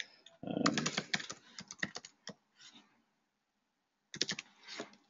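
Typing on a computer keyboard: a quick run of keystrokes in the first two seconds, then a pause and a few more keystrokes near the end.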